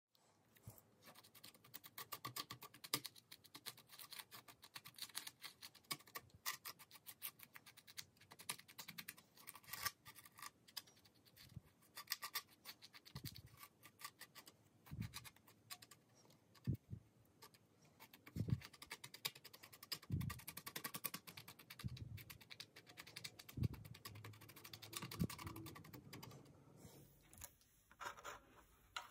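Faint, dense scratching and clicking of hands working on a broken plastic car-interior part, with occasional soft low knocks.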